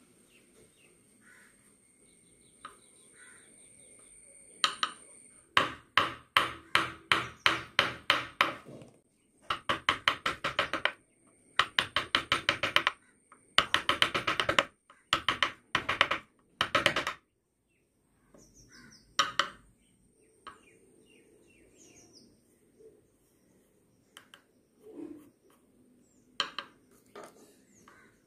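Carving chisel driven into wood by mallet strikes, in quick runs of about three or four strikes a second. The runs stop about two-thirds of the way through, and a few scattered single taps follow.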